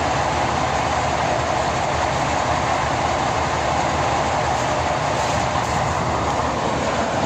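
Kirovets K-701 tractor running steadily under way: a constant, even engine and drivetrain noise with no change in pitch or level.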